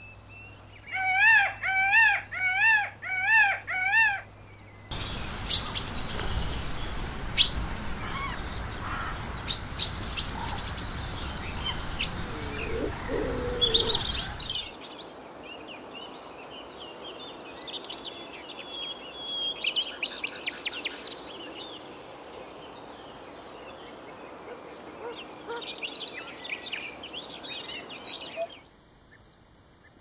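Birds calling and chirping. Near the start, five loud repeated calls in quick succession, each rising and falling in pitch. From about five seconds in comes a busier stretch of sharp chirps and clicks over a steady hiss, and from about fifteen seconds lighter, quicker twittering.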